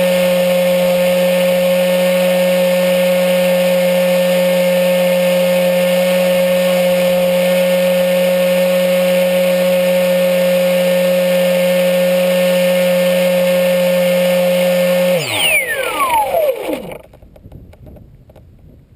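Electric motor and APC 6x4E propeller of a HobbyKing Bixler RC plane, heard from on board, running with a loud, steady whine. About fifteen seconds in the whine falls steeply in pitch as the propeller spins down, amid a couple of seconds of rough, uneven noise, leaving only faint wind noise.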